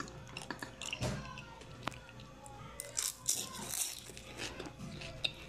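Faint, irregular crunching and small clicks of someone eating crispy deep-fried lumpiang shanghai (Filipino pork spring rolls).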